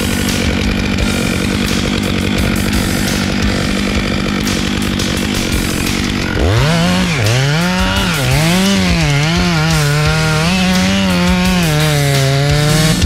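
Large chainsaw running at high speed while bucking a felled maple trunk into firewood. About halfway through, the engine pitch rises sharply and then dips and recovers again and again, the saw bogging under load in the cut.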